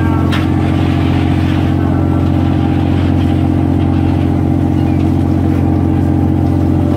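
Crab boat's engine and deck machinery running with a loud, steady drone. A short knock or clatter comes right at the start.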